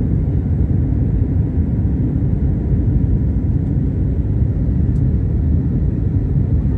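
Steady low rumble of an airliner's jet engines and rushing air, heard inside the passenger cabin during the climb after takeoff.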